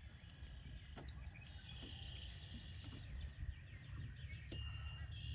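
Outdoor ambience: a steady low rumble, with a few short buzzy animal calls and scattered faint clicks.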